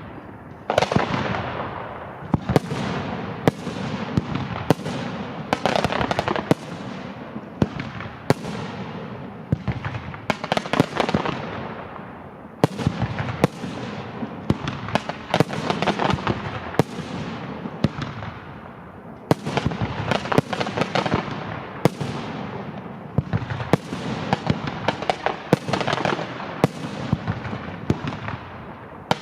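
Fireworks display: a continuous barrage of shells bursting in the air, sharp bangs every second or so, each followed by a long rolling echo and crackle.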